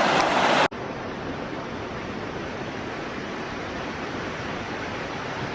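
Rushing water of a mountain creek: a steady, even rush that drops abruptly to a quieter steady rush under a second in.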